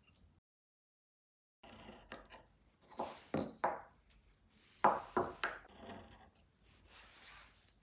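Hand tool working wood in short scraping strokes: three quick strokes, a pause, three more, then a fainter rasping stretch.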